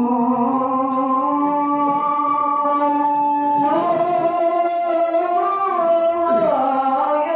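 Melodic Quran recitation (tilawah): a single voice holds long, ornamented notes, stepping up to a new pitch about four seconds in and sliding down near six seconds.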